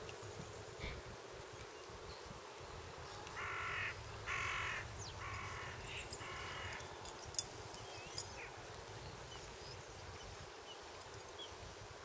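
A crow cawing four times in a row, each harsh call about half a second long, followed a little later by two sharp clicks.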